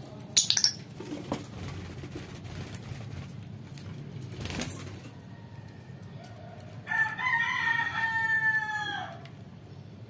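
A rooster crows once: one long call of about two seconds, starting about seven seconds in and falling slightly at the end. Shrill lovebird chirps sound briefly near the start.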